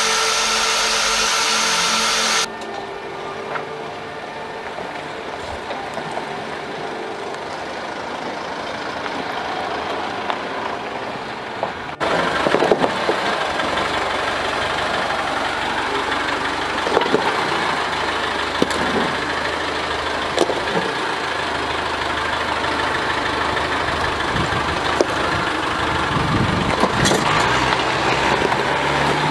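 A cordless drill spinning a wire brush against rusty steel cuts off sharply about two seconds in. From about twelve seconds in, a Land Rover Defender's engine runs as the vehicle crawls up a rocky slope, with scattered knocks.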